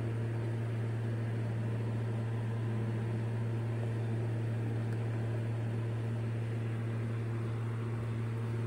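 Steady low hum over an even hiss from a running desktop test PC, its cooling fans and power supply.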